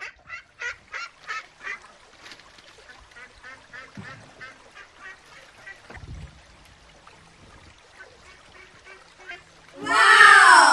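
Ducklings peeping in quick runs of short calls, loud at first and then fainter. Near the end, one loud, long call falling in pitch.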